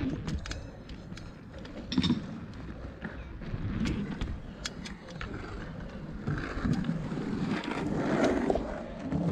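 Knobby mountain bike tyres rolling on concrete, the rumble rising and falling over the skatepark's rollers and bowl, with scattered clicks and rattles from the bike. There is a sharp jolt about two seconds in.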